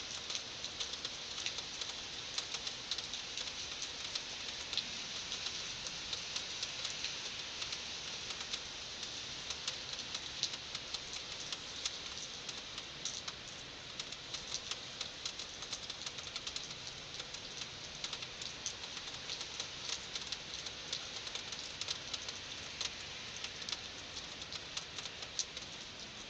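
Heavy rain falling: a steady hiss with many close drops pattering sharply on a surface.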